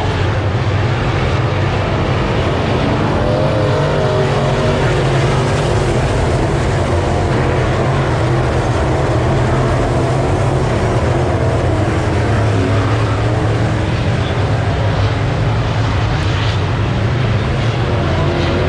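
Several race car engines running together on a dirt oval, a loud steady drone whose pitch wavers up and down as the cars go round.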